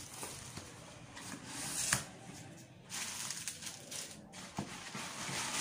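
A cardboard box and its bubble-wrap packing being opened and handled: flaps bending, rustling and crinkling with small clicks. It is loudest a little under two seconds in.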